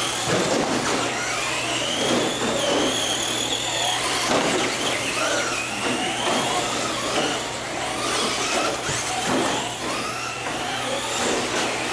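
Traxxas Slash electric RC short-course trucks racing: the high whine of their electric motors rises and falls in pitch as they speed up and slow down, over a steady low hum.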